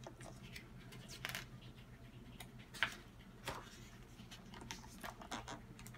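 A few light taps and paper rustles as a page of a hardcover picture book is turned, over a faint steady hum.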